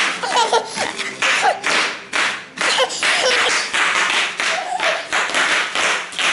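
Bubble wrap crinkling and popping under a toddler's bare feet as he is bounced up and down on it, a rapid run of crackling bursts about three a second, with a child's brief squeals in between.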